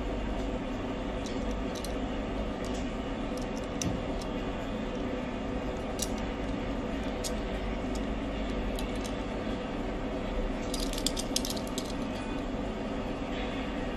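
Light clicks and taps from a die-cast Tomica Honda S660 toy car being turned over between the fingers, with a quick cluster of clicks about eleven seconds in. A steady low hum runs underneath.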